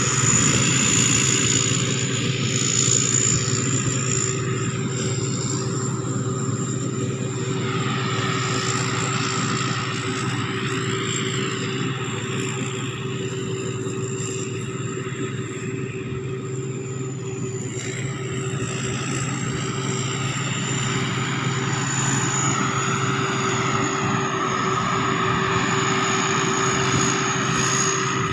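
Sakpattana SS-300 combine harvester running steadily under harvesting load. Its engine drones, with a steady high-pitched turbo whistle over it.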